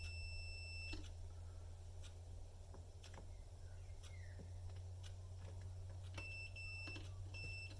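Multimeter continuity beeper sounding while the probes test the power lead: one steady high beep about a second long at the start, then three short beeps near the end, with faint probe taps between them over a low steady hum. The lead is being checked for a break, and is judged in need of replacing.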